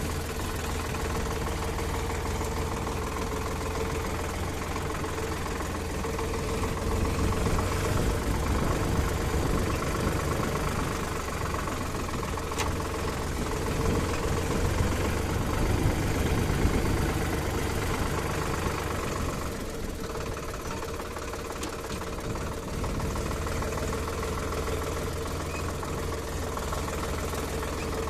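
Heavy vehicle's diesel engine running steadily. It gets louder for several seconds in the middle, then eases back.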